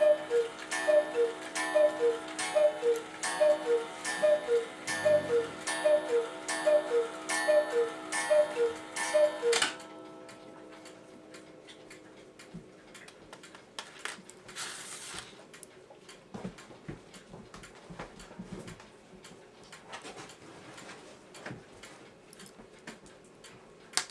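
Mechanical clock ticking with ringing, uneven tick-tock beats, a higher and a lower beat about 0.3 s apart in each pair, stopping abruptly about ten seconds in. Faint clicks and scrapes of small metal parts follow.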